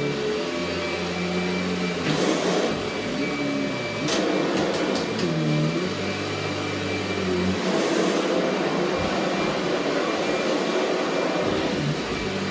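Kirby GC Ultimate G upright vacuum cleaner running steadily. A low pitched sound holds notes and slides up and down over it for the first eight seconds or so, then fades.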